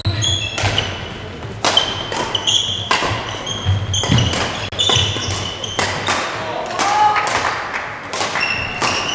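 Badminton doubles rally: sharp racket hits on the shuttlecock, with players' shoes squeaking and thudding on the court floor between the strokes.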